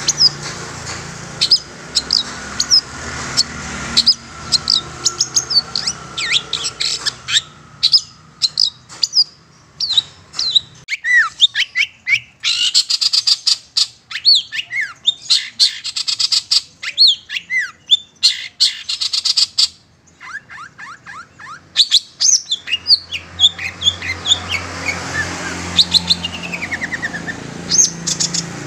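Long-tailed shrike (cendet) calling: a rapid string of sharp chirps and sweeping whistled notes, with harsh rasping chatter through the middle.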